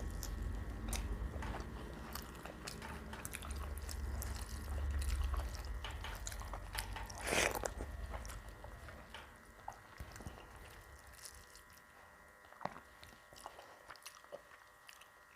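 Close-up chewing and biting of a mouthful of rice and fried prawn fritter (chingri bora), with wet mouth clicks. The chewing is busier through the first half, with one louder bite about seven seconds in, then thins to occasional soft clicks.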